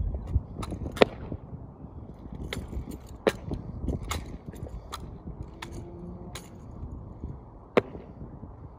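Drill rifle being tossed, spun and caught during a solo exhibition drill routine: a series of sharp, irregularly spaced slaps and clacks as the rifle hits the hands and body, the loudest about a second in and another near the end. A steady low rumble runs underneath.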